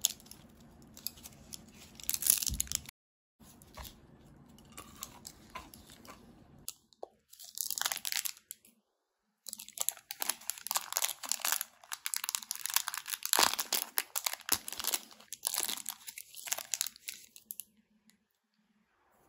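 Crinkly plastic candy packaging being handled and torn open in several bursts of crackling, the longest a run of crinkling and tearing through the middle and latter part.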